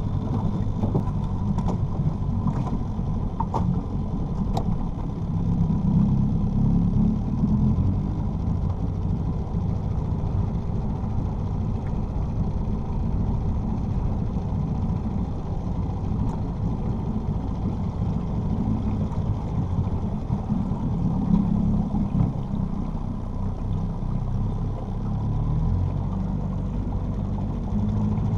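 Small pull-start outboard motor on a jon boat running steadily.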